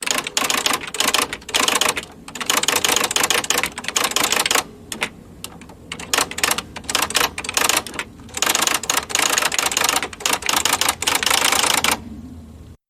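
Electric typewriter being typed on: fast runs of key strikes with short pauses between them, the strikes sparser for a stretch around five seconds in and dying down near the end.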